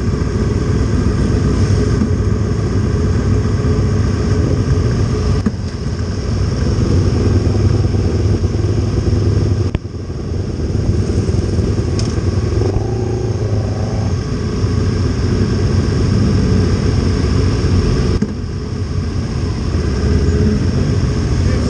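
Honda CB500 parallel-twin racing motorcycle engine running at low revs and idling in a queue of motorcycles, with other bikes' engines running around it. The sound dips briefly a few times.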